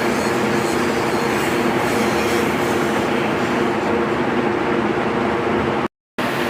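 Angle grinder running steadily against a steel leaf spring, grinding down a weld. The sound cuts out completely for a moment near the end.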